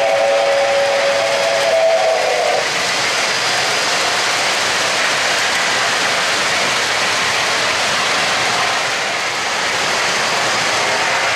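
O-gauge model train's onboard sound system blowing a chime whistle, several notes sounding together, which stops about two and a half seconds in. After it comes the steady running noise of the trains rolling on three-rail track, and the whistle starts again right at the end.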